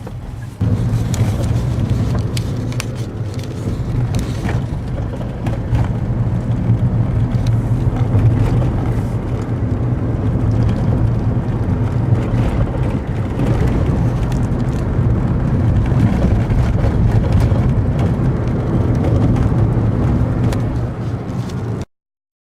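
Daihatsu Move Custom RS (L175S) turbo kei car on the move: a steady low engine and road rumble with scattered knocks and clicks over it, cutting off abruptly near the end. The knocking is the owner's driving noise, which he apparently traces to worn front brake caliper slide pins and a sagging engine mount.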